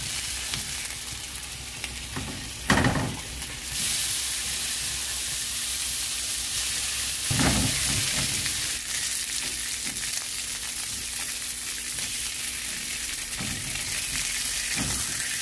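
Sliced pork belly frying in a hot pan: a steady sizzle that grows stronger a few seconds in, with a few short knocks.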